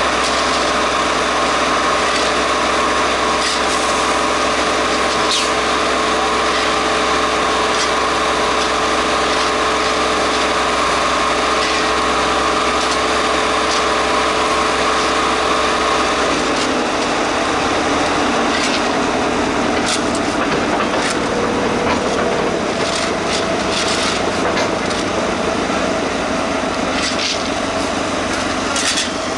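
Plasser & Theurer 08-16 compact tamping machine running steadily, with a steady whine that drops away about halfway through. Sharp ticks and knocks come through in the second half.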